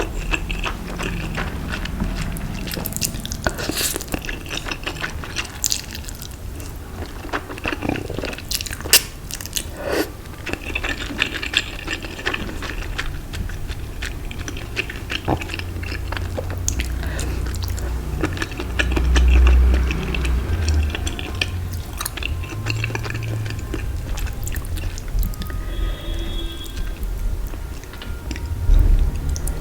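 A person chewing and biting food close to the microphone, with many short crisp crackles and clicks. A low, heavy thud rises about two-thirds of the way through.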